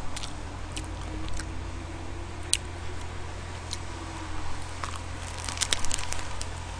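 Close-miked biting into and chewing a triangle kimbap wrapped in dried seaweed, with scattered crisp crackles from the seaweed sheet, most of them bunched together about five to six seconds in.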